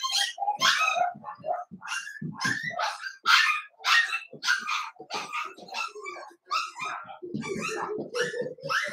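Cavalier King Charles Spaniel barking over and over, about two sharp barks a second, with a lower, drawn-out bark-whine near the end.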